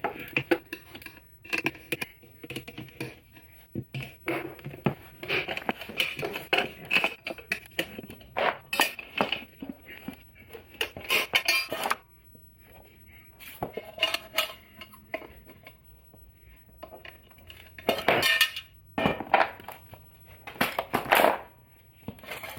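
Metal hand tools clinking and clanking against metal motorcycle parts, in a fast irregular run of sharp knocks and scrapes with a brief quieter spell midway.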